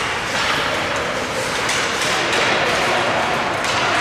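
Spectators at a youth game talking and shouting all at once, a dense crowd hubbub with a few short knocks in it.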